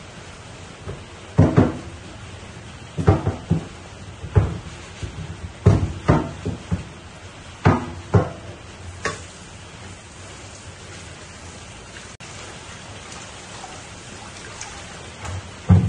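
Broth bubbling steadily at the boil in a pan, a rain-like patter. Over the first nine seconds or so, about nine short knocks or pops break in, and one more comes near the end.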